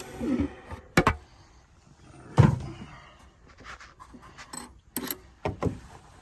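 Four sharp clacks and knocks, the loudest about two and a half seconds in, with keys clinking. These are handling sounds as the freshly cut key is taken from the key-cutting machine's clamp.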